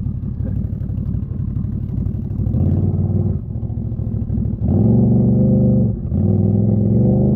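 Can-Am Renegade 1000 XMR ATV's V-twin engine running at low throttle, then given throttle in bursts: a short one about two and a half seconds in, a longer, louder one near five seconds, and after a brief drop near six seconds, held up again to the end.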